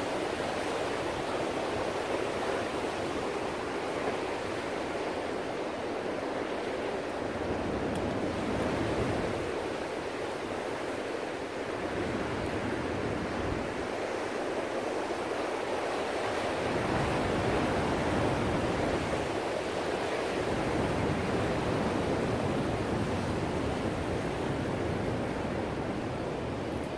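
Ocean surf: a continuous rushing wash of breaking waves and foam, with a deeper rumble that swells in and eases off every few seconds as waves come in.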